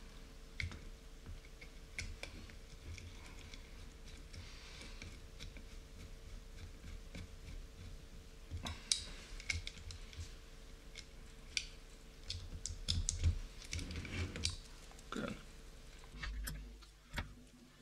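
Scattered light clicks and taps of a hex driver and small metal screws and parts as an aluminium RC car chassis is assembled, the shocks being screwed on.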